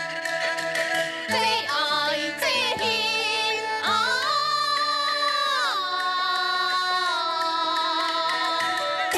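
Gezai opera aria: a singer holds long, wavering notes over a traditional Chinese instrumental accompaniment, the voice entering about a second in.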